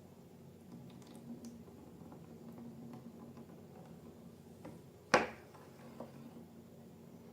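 Faint clicks and handling noise over a low steady hum, with one sharp, loud pop or snap about five seconds in.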